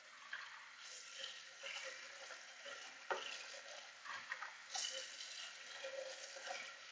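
Kitchen tap running into a plastic container as it is rinsed out, the water splashing and pouring off into a sieve of copper column packing. The sound is a faint, steady hiss with a few light knocks, the sharpest about three seconds in.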